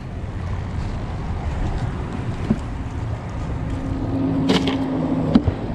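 Steady low outdoor rumble. A low hum joins about four seconds in, and two short sharp knocks come near the end as a fish is laid on ice in a plastic cooler.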